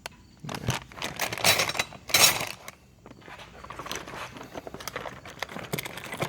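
Large metal combination wrenches clinking and packaging rustling as tools are handled and set down, with the loudest scraping rustle about two seconds in.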